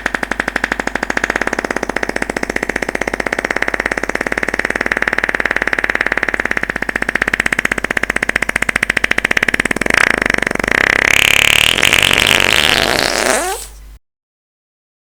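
One long fart sound: a rapid, buzzing flutter held for over ten seconds, turning near the end into a higher squeal whose pitch rises and then falls before it stops abruptly.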